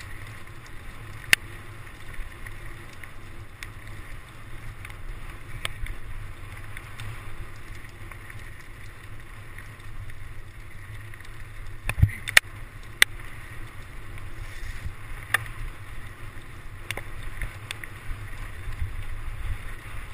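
Mountain bike riding fast over a rough dirt track, recorded from a camera mounted on the bike: a steady low rumble of tyres and wind on the microphone, with sharp clicks and knocks as the bike jolts over bumps, several close together near the middle.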